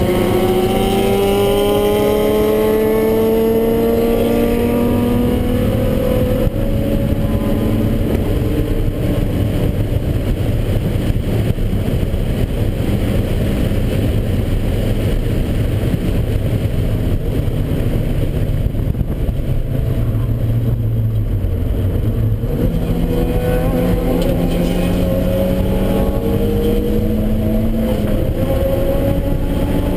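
Inside the cabin of a turbocharged Mazda Miata (about 10 psi) at full throttle: the four-cylinder engine's pitch climbs steadily for the first several seconds, the middle stretch is a dense, steadier mix of engine, road and wind noise, and it climbs again under power near the end.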